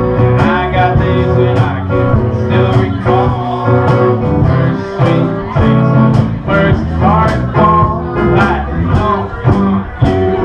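A singer performing a country-style song, accompanied by strummed guitar.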